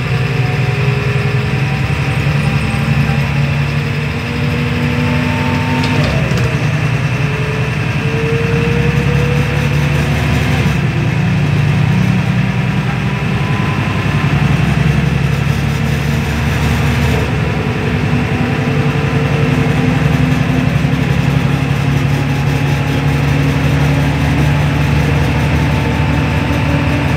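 Cabin sound of a MAN NL222 city bus under way: the engine and drivetrain run steadily beneath a faint whining tone that rises slowly and drops back a few times as the bus gathers speed.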